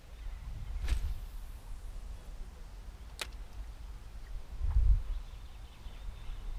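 Handling noise from a spinning rod and reel under low wind rumble on the microphone: a soft swish about a second in, a sharp click a little after three seconds, and a dull thump near five seconds.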